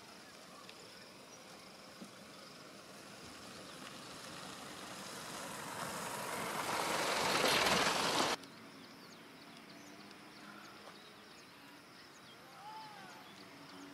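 A motor vehicle approaching, its noise growing steadily louder for several seconds, then cut off abruptly about eight seconds in. After that there is quiet outdoor ambience with faint chirps.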